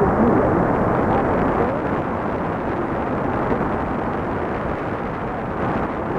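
Shortwave radio static from a Tecsun PL-380 portable receiver tuned to 9670 kHz: a steady, dull rushing noise with no clear speech from the station.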